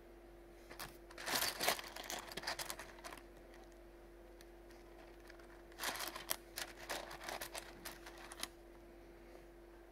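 Pieces of rough opal clicking and clattering against each other as fingers pick through a heap of stones, in two spells of a couple of seconds each. A steady faint hum runs underneath.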